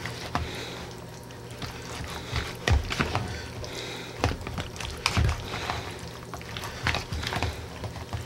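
Spatula folding cut strawberries into strawberry glaze in a plastic mixing bowl: irregular soft knocks and scrapes of the spatula against the bowl as the fruit is mixed.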